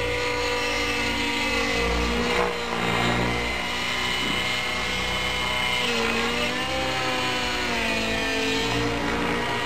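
Vibe 90 radio-controlled model helicopter flying overhead, its engine and rotor whine wavering up and down in pitch as it manoeuvres.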